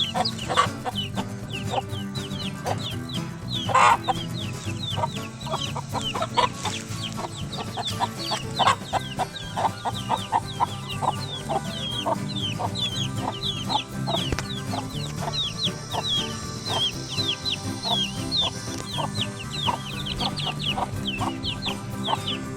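Chicks peeping continuously, short falling chirps several a second, with a mother hen clucking among them and a few louder calls early on.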